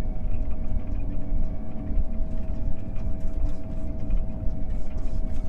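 John Deere T670i combine harvester running along the road, heard from inside the cab: a steady engine rumble with a constant whine riding over it.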